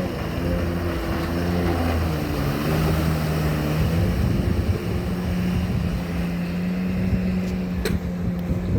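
Jet ski engine running under way, its pitch shifting with the throttle in the first few seconds and then holding steady, over a steady rushing noise. A short click sounds near the end.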